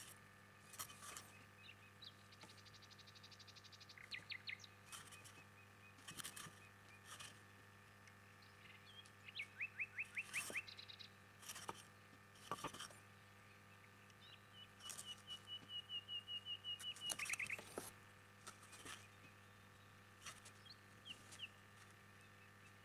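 Faint bird chirps at irregular intervals, in quick short series with a trill, over a steady low hum.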